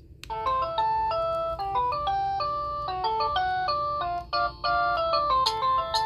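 Samsung SPH-A860 flip phone's speaker playing a polyphonic melody ringtone preview: a bright synthesized tune of quick notes that starts about a quarter second in after a brief break.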